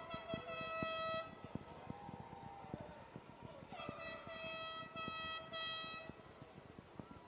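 A horn sounding two long, steady blasts, the first ending about a second in and the second running from about four to six seconds in, over irregular crackling pops.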